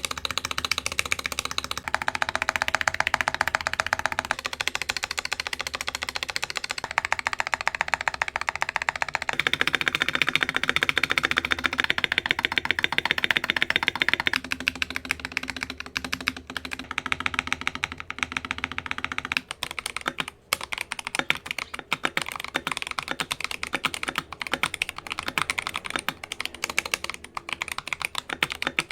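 Rapid typing on a Keychron V1 mechanical keyboard, tactile Akko V3 Cream Blue switches on the letter keys and Keychron Brown switches on the rest, all lubed, with the case dampened by foam, tape and polyfill. Steady fast keystrokes, turning into slower, more spaced keypresses about two-thirds of the way through.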